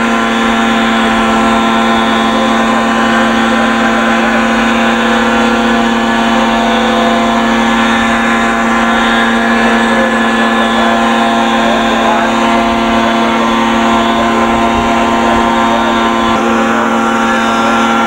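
Small two-stroke engine of a radio-controlled model helicopter running steadily at high, unchanging revs while the model hovers, a constant high-pitched drone.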